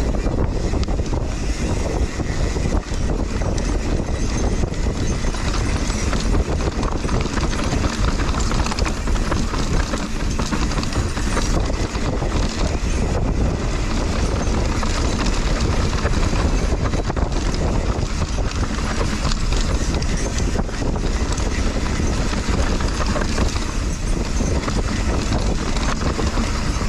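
Mountain bike riding fast down a rough dirt trail: steady tyre noise with rapid rattling of chain and frame, and wind buffeting the microphone.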